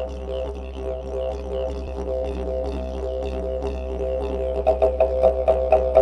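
Didgeridoo music: a steady low drone with shifting overtones, breaking into rhythmic pulses about four a second near the end.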